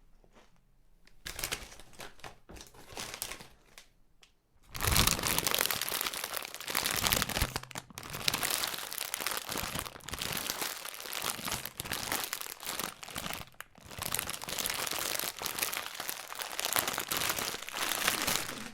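A chip packet being rustled and crinkled by hand. There are a few soft, scattered crinkles at first, and from about five seconds in a dense, continuous crinkling that is much louder.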